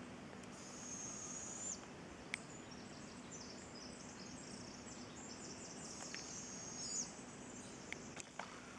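Faint outdoor ambience with high, thin buzzing calls: one lasting just over a second about half a second in, and a broken run of them from about four and a half to seven seconds in.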